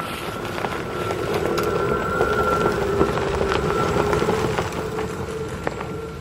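A vehicle passing by: a steady hum with a held whine that swells to a peak midway and then fades, with a few scattered ticks.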